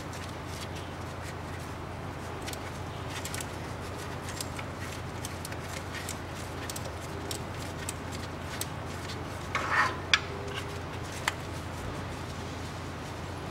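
Light metallic clicks and clinks as the transfer case drain plug is worked loose by hand with a 6 mm hex key. A short cluster of louder clinks comes about ten seconds in, over a steady low hum.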